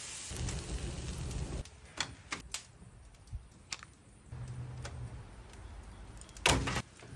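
Hands-on grilling sounds: a brief sizzle-like hiss as the raw steak goes onto the hot grill grate, then several sharp clicks as the MEATER+ wireless probe is handled and pulled from its wooden block, and a loud short clatter about six and a half seconds in as wood chunks are handled over the charcoal firebox.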